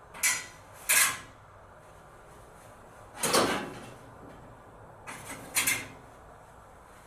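Metal grill parts being handled: five short scraping knocks, with the one about three seconds in the longest.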